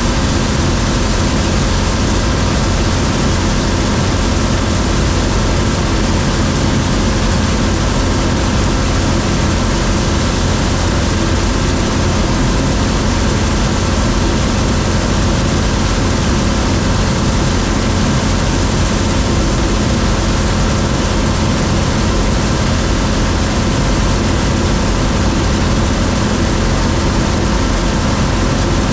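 John Deere 3300 combine running steadily while harvesting corn: an even, unchanging drone of the engine and threshing machinery.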